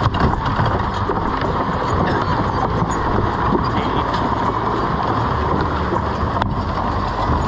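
Team of horses wading through a river pulling an iron-wheeled wagon: water splashing and churning around their legs, with a steady clatter of harness chains and wagon.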